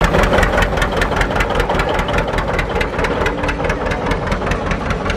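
John Deere two-cylinder tractor engine running at low speed, its exhaust popping in an even, rapid beat of about seven pops a second.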